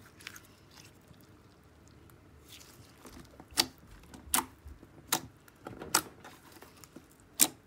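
Clear glitter slime being squished and pressed by fingers: faint sticky crackling at first, then sharp popping clicks about once a second from about three seconds in, as air pockets in the slime burst.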